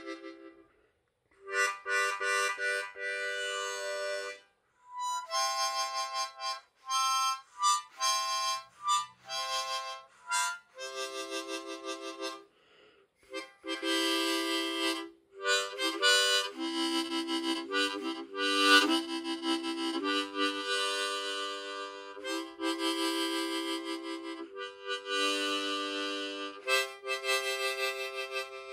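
Hohner Special 20 diatonic harmonica in C played in loose, unstructured phrases: blown and drawn chords of several reeds at once, with a run of short single notes in the middle and brief breaths between phrases.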